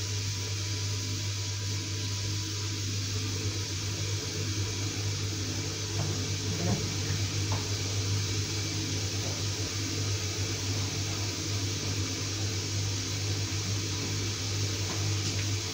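Steady low electrical hum with a hiss, like a small motor or fan running, with a few faint knocks about six to seven seconds in.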